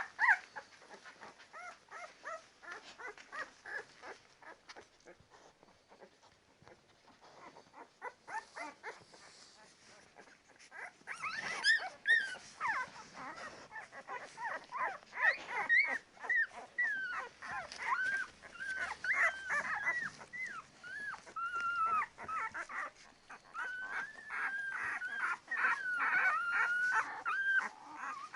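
Ten-day-old Labrador Retriever puppies whimpering and squeaking, many short high cries that bend up and down in pitch. Faint and scattered at first, they become busier and louder about eleven seconds in.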